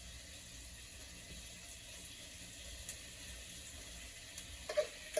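Roast beef juices and drippings sizzling faintly in a pot on a stove burner at medium heat as they melt down for gravy.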